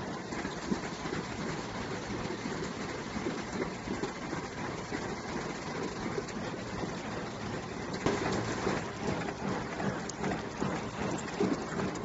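Steady machinery din of a motor workshop, a dense rapid clatter of running machines, with a few louder knocks from about eight seconds in.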